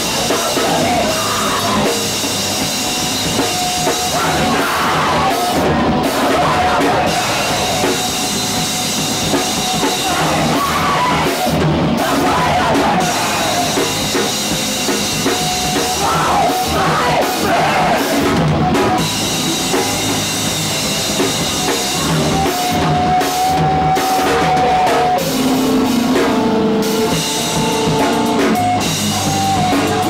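Live rock band playing loud, with a full drum kit, guitar and shouted vocals.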